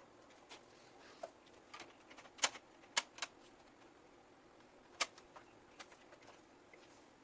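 Scattered sharp clicks and taps at an uneven pace, the loudest about two and a half, three and five seconds in: hands handling PC parts and cables.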